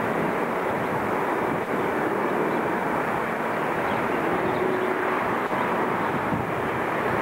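Jet airliner landing, heard from afar as a steady, even rush of engine noise.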